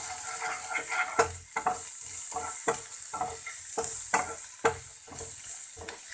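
Finely chopped onion sizzling in hot oil in a pan, with a spatula scraping and stirring against the pan about twice a second.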